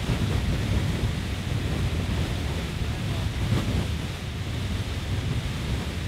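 Beehive Geyser erupting: its water-and-steam jet makes a steady rushing hiss, with wind rumbling on the microphone.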